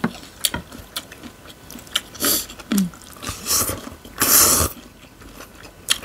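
Close-up eating sounds of noodles being slurped and chewed, with small clicks of chopsticks and bites. The slurps come in several short bursts, the loudest about four seconds in.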